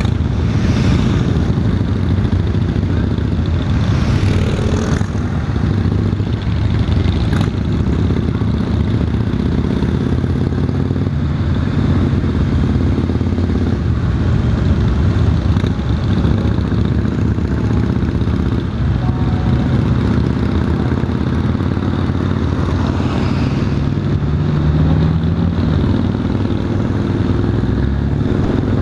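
Honda Valkyrie F6C's flat-six engine running steadily at cruising speed, heard from the handlebars with wind and road noise. Its pitch rises briefly late on.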